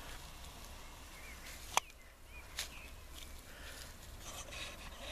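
Dry twigs and brush snapping and rustling as dogs push through undergrowth: a few sharp snaps, the loudest a little under two seconds in, and a crackle near the end. Faint bird chirps sound in the background.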